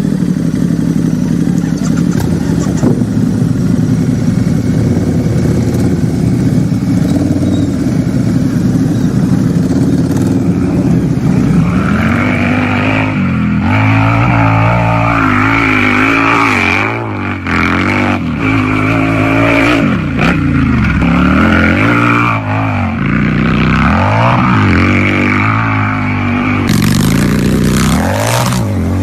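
Harley-Davidson V-twin motorcycle engine idling steadily, then from about twelve seconds in revved again and again, its pitch rising and falling with each blip of the throttle.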